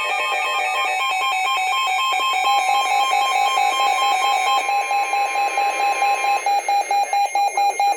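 Midland weather radio sounding its alert alarm for a severe thunderstorm warning: rapid pulsing electronic beeps in several pitches. The NOAA Weather Radio 1050 Hz warning tone sounds steadily underneath from about a second in until about six seconds in. Near the end the beeping settles into a regular pulse about three times a second.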